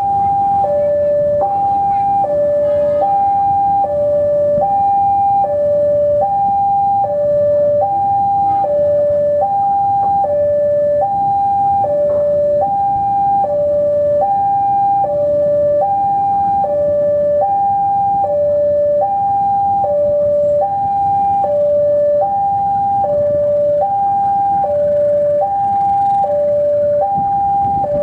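Railway level-crossing warning alarm: an electronic two-tone signal alternating high and low, about one high-low pair each second, repeating steadily.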